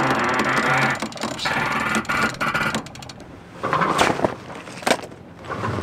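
A sail being hoisted by hand at the mast: halyard rope running over the mast winch and sheave in two long runs, then a few sharp knocks from the rigging.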